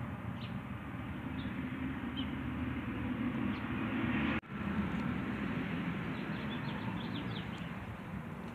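Outdoor ambience: a steady low rumble with a few faint, short bird chirps scattered through it, broken off for an instant about halfway through.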